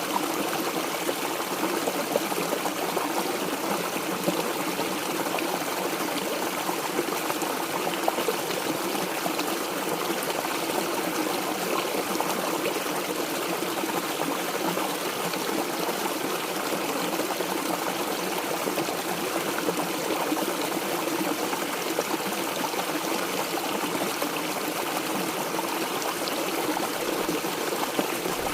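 Mountain stream water flowing and trickling steadily, an even rushing with no breaks.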